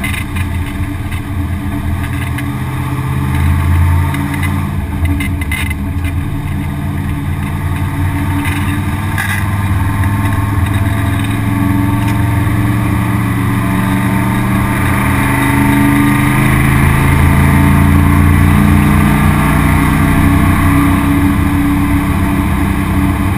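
V8 race car engine heard from inside the stripped cabin, running at moderate, steady revs, its pitch rising slowly about two-thirds of the way through and then holding. A few sharp clicks sound in the first ten seconds.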